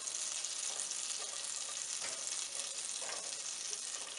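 Butter sizzling steadily as it melts and foams in a hot nonstick pan, with soft strokes of a silicone spatula pushing the block around.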